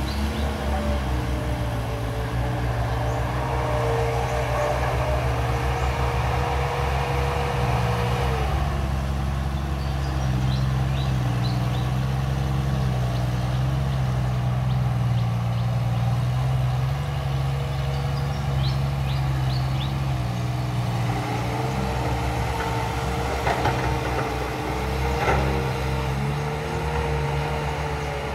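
Heavy diesel engine running steadily, with a higher whine over it that drops away about eight seconds in and comes back about twenty-one seconds in.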